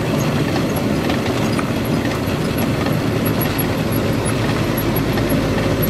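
Steady engine and road noise of a truck cruising along a highway, heard from inside the cab.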